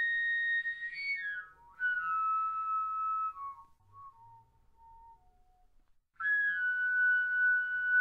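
Corrugated plastic tube sounding clear whistle-like overtones. The pitch jumps down in distinct steps from one overtone to the next, in three runs that each start high and step lower. The second run fades out low before a short gap, and the third starts about six seconds in.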